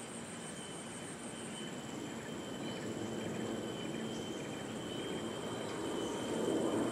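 Rainforest insects calling steadily: a fast, pulsing high trill and a steady high whine, over a low rumble that grows louder toward the end.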